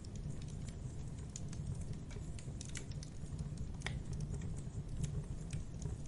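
Wood campfire crackling and popping: quick irregular snaps from the burning logs over a steady low rumble, with one sharper pop about four seconds in.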